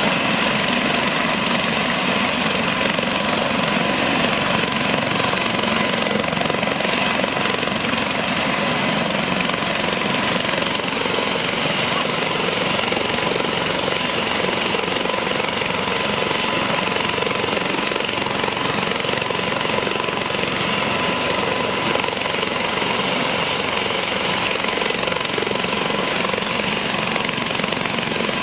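Helicopter running close by: a loud, steady rush of rotor and engine noise with a thin, steady whine above it.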